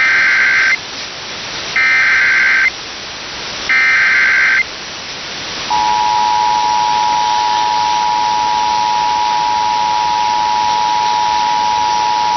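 Emergency Alert System activation: three SAME header data bursts, each under a second long and about a second apart, then the steady two-tone attention signal starting about halfway through and holding. A constant hiss runs underneath.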